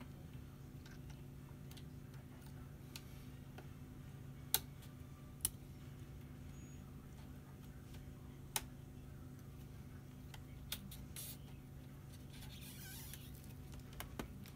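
A few sharp, isolated clicks and taps as hands pry and press at the plastic and metal edges of a laptop display assembly, with a short scraping rustle near the end, over a steady low hum.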